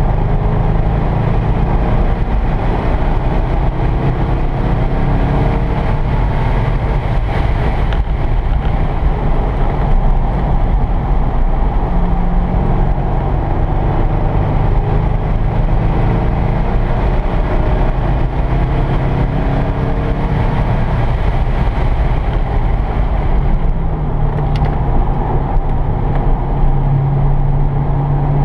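C5 Corvette Z06's LS6 V8 running hard on a road course, heard from inside the cabin with road noise. The engine note rises and falls with throttle and gear changes, climbing near the end.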